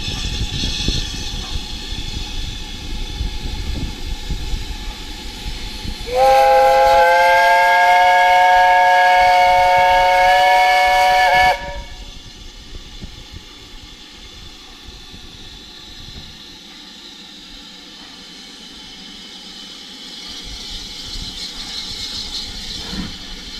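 Steam whistle of BR Standard Class 4 locomotive 75014 'Braveheart' blown in one long blast of about five seconds, several steady tones sounding together that rise slightly as it opens: the locomotive whistling for departure. A steady hiss comes before the blast and a fainter one after it.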